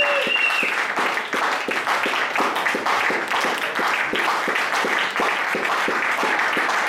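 Audience applauding, a dense steady clatter of many hands clapping. A brief high tone sounds right at the start.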